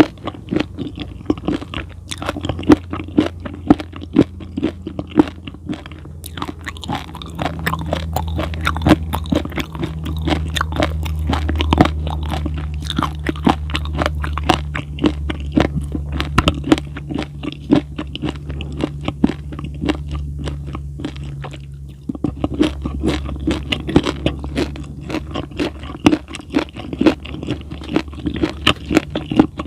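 Close-miked, wet crunchy chewing: a dense, irregular run of crunches and mouth clicks. A low steady hum sits underneath through the middle of it.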